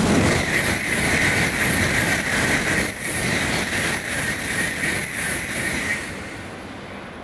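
A Tokaido Shinkansen bullet train going past at speed: a loud, steady rushing noise with a high hiss on top and a regular beat about twice a second. It falls away fairly suddenly about six seconds in as the tail of the train goes by.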